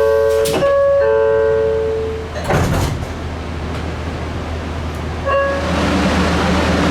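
A 700 Series Rail Star Shinkansen door chime plays a repeating two-note ding-dong, then the sliding door shuts with a short rush of noise about two and a half seconds in. A steady hiss rises from about five seconds in.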